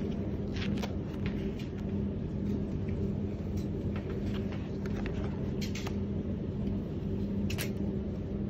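A steady low mechanical hum with a constant droning tone, over which paper and fabric sample sheets rustle and tap a few times as they are turned by hand.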